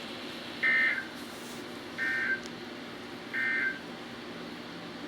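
NOAA Weather Radio SAME end-of-message data bursts: three short, buzzy digital chirps about 1.3 seconds apart over a steady radio hiss. They mark the end of the weekly test alert.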